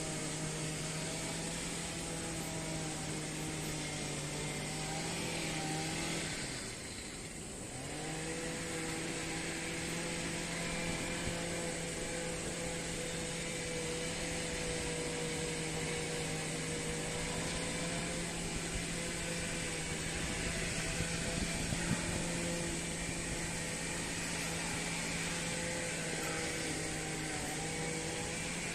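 Steady mechanical hum with a low held drone and a higher wavering tone over a hiss, dipping briefly about seven seconds in.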